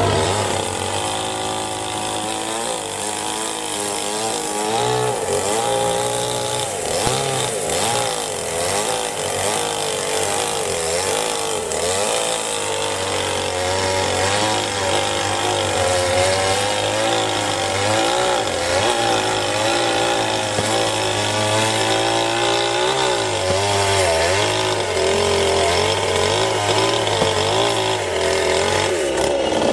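Two-stroke chainsaw running and cutting through firewood logs, its engine pitch rising and falling as the chain bites and frees.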